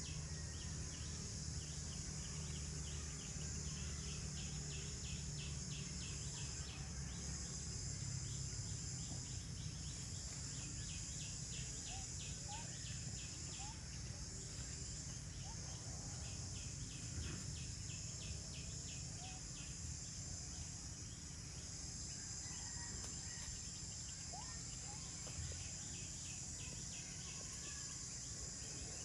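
Insects droning steadily, with runs of fast, evenly pulsed chirping that come and go, a few short faint bird chirps, and a low rumble underneath.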